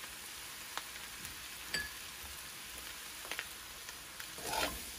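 A shrimp, egg and vegetable stir-fry sizzling in an aluminium kadai, a steady frying hiss. A metal spoon clicks lightly against the pan a few times, with a louder scrape about four and a half seconds in as it is stirred.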